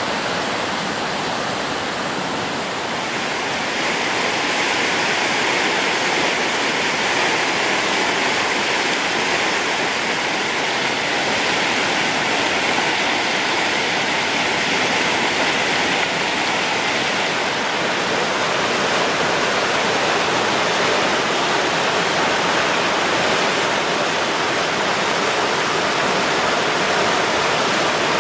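River rapids rushing through rocky chutes: a loud, steady wash of whitewater noise, a little louder from about four seconds in.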